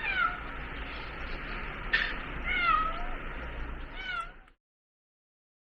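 A cat meowing three times, each meow falling in pitch, over a steady background hiss, with a sharp click about two seconds in; the sound cuts off abruptly near the end.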